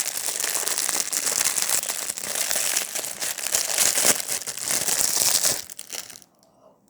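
Packaging wrapper crinkling as it is opened by hand: a dense run of crackles that stops about six seconds in.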